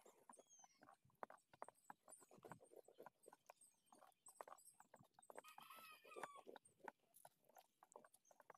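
Near silence, with faint scattered clicks and faint high bird chirps, and a short call about six seconds in.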